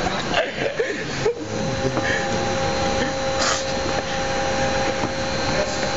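Steady mechanical drone of machine-shop equipment with two constant hum tones running through it. Rubbing and knocking from the camera being handled in the first second or so.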